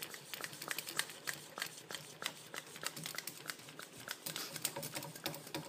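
Handheld shock pump being worked to raise the main air chamber pressure of a Fox Float X Evol shock: a fast, irregular run of light clicks and rattles.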